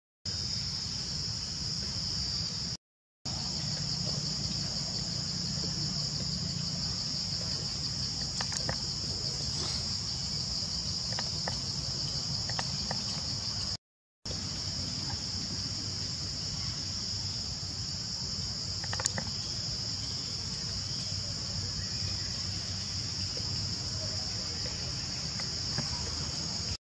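Steady high-pitched drone of insects over a low rumble, with a few faint clicks; it cuts out briefly twice.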